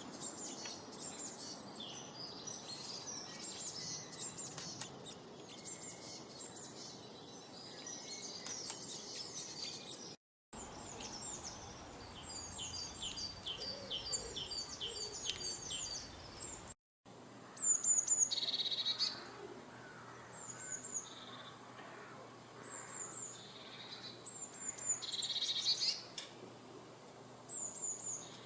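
Wild birds chirping and singing in quick high notes. Three separate recordings are joined with two short dead-silent gaps: the first holds a dense chorus of chirps, the middle a rapid run of repeated notes, and the last sparse high chirps with a few louder calls.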